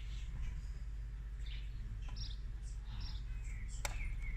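Small birds chirping now and then over a low steady hum, with one sharp click near the end.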